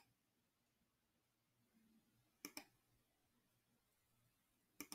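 Near silence: room tone with a few faint clicks, a quick pair about two and a half seconds in and another pair near the end.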